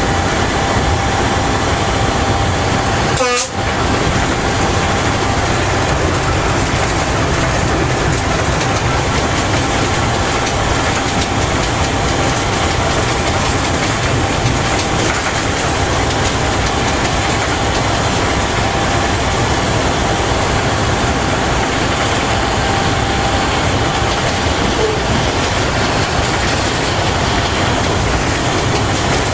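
Cab noise of a Škoda-built BDZ class 44 electric locomotive running at speed: a steady, loud rush of wheels on rail and air, with a thin steady whine through it. The sound drops out briefly about three seconds in.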